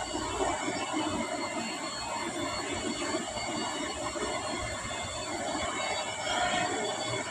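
Steady background rumble and hiss with no clear single source.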